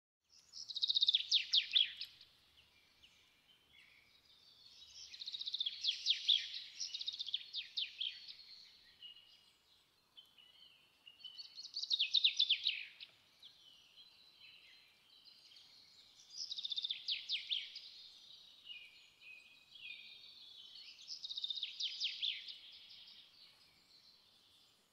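Birds singing in bouts of rapid, high-pitched chirps and trills, each about two seconds long and recurring roughly every five seconds.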